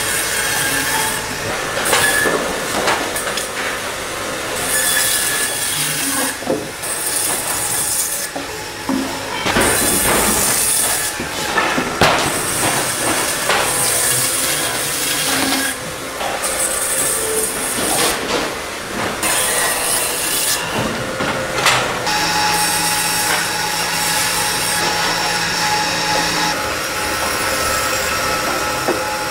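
Band saw running and cutting through whole frozen tuna, a steady machine noise with a hissing rasp from the blade in the frozen fish, amid other factory machinery. The sound changes abruptly every second or two.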